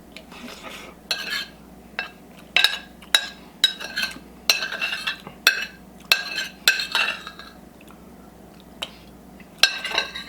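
Fork clinking against a plate while scraping up the last bites of food: about a dozen irregular strikes, each with a short ring. They stop for about two seconds, then two or three more come near the end.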